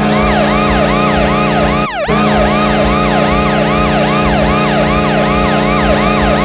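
Hockey arena goal horn, the Washington Capitals horn, sounding a steady low chord with a siren whooping over it about three times a second. About two seconds in, the siren falls in one long sweep and the horn drops out for a moment, then both come back.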